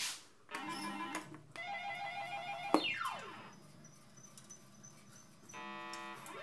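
Claw crane machine's built-in speaker playing its electronic game tune in short repeated notes, then a falling sweep about three seconds in, a quieter stretch, and a buzzy steady tone near the end.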